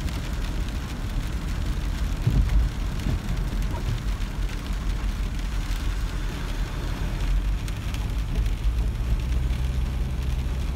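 Rain falling on a car's windscreen and roof, heard from inside the cabin, over the steady low rumble of the car driving on a wet road.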